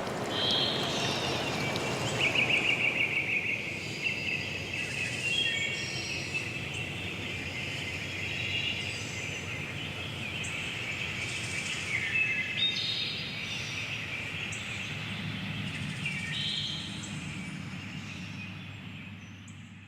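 Several birds chirping and trilling in a forest chorus, with the hiss of running water fading out in the first few seconds. The whole soundscape fades down near the end.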